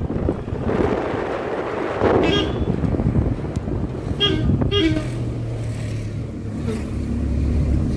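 Vehicle horn honking: a short toot about two seconds in, then two quick toots around the middle, over the steady low hum of a car engine.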